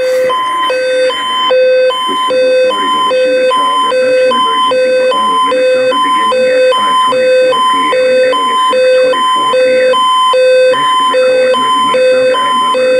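EAS alert tone for a child abduction (Amber) alert broadcast on AM radio: two pure tones an octave apart, a low and a high, alternating evenly and without a break over faint radio static.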